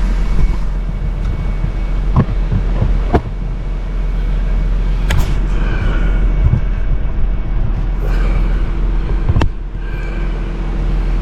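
A steady low rumble with a few sharp clicks and knocks as parts are handled inside a car's center console, while the old parking-brake switch is being worked loose.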